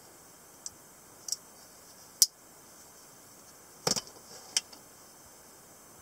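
Short metallic clicks and snaps from an AK47-style automatic pocket knife worked by hand as its lock is released and the blade is folded shut into the handle. There are single clicks, the sharpest about two seconds in, and a quick cluster of clicks about four seconds in.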